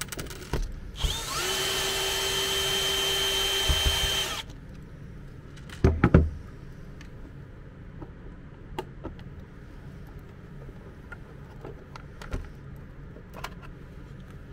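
Cordless drill-driver backing out housing screws: a short burst of the motor about half a second in, then a steady whine that ramps up and holds for about three seconds. Two loud knocks follow around six seconds in, then light clicks and taps of the plastic housing being handled.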